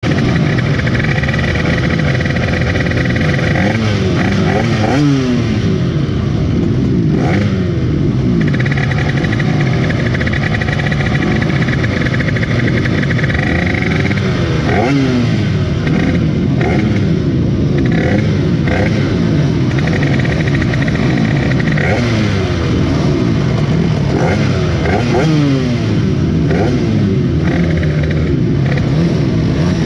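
Race minibike engines idling on a start grid, with throttles blipped every few seconds so the pitch rises and falls, several engines overlapping.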